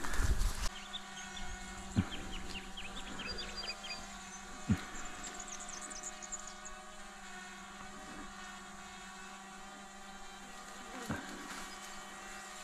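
Quadcopter drone hovering overhead: a steady hum of several even tones from its propellers, with a couple of soft knocks and a few high chirps over it.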